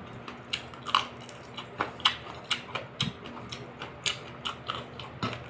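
Close-up mouth sounds of chewing fried marinated lizardfish: wet smacks and crunchy clicks at an uneven pace, about two a second.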